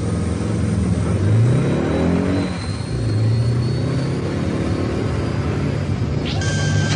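Car engine revving up, rising in pitch about two seconds in, then running steadily at speed. Music swells in near the end.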